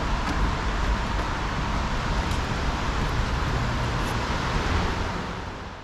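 Steady rushing street noise of traffic and wind, fading out near the end.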